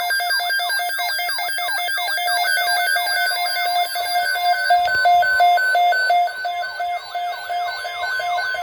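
Weather radio alert alarm sounding for a severe thunderstorm watch (SVA): loud, rapidly pulsing electronic beeps mixed with repeated quick downward sweeps and a warbling siren-like tone.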